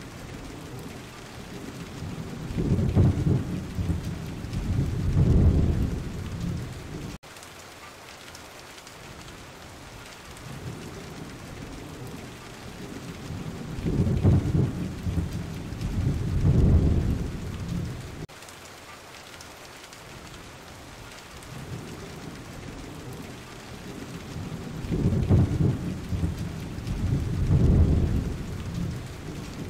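Steady heavy rain hissing, with three long rolls of thunder rumbling low, each swelling twice and fading, about every eleven seconds. The first roll breaks off abruptly.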